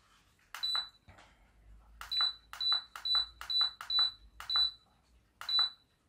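Button presses on a Turnigy B6 Pro hobby battery charger, each press giving a click and a short high beep: one about half a second in, then a quick run of six about half a second apart from two seconds in, and another near the end. The presses step through the charger's menu to set it back to lithium-ion mode.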